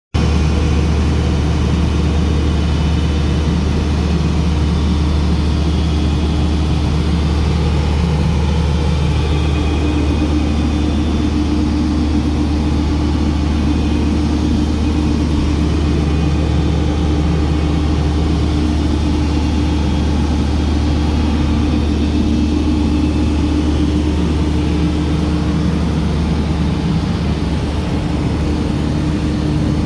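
Construction machinery engine running steadily: a constant low drone with a steady humming tone, unchanging throughout.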